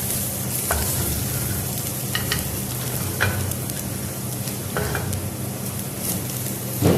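Food sizzling as it fries in a pan, stirred with a utensil that scrapes and knocks against the pan a few times, the last knock near the end the loudest. A steady low hum runs underneath.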